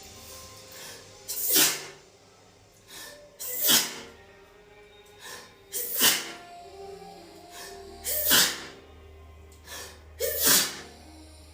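A woman in a sneezing fit: five loud sneezes about two seconds apart, each a short voiced 'ah' breaking into a sharp sneeze, with a smaller catch of breath before each.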